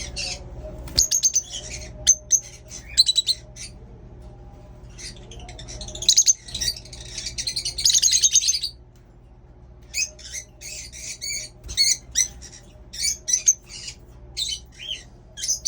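Pet birds chirping and chattering in quick runs of short, high calls, grouped into bursts with brief pauses between.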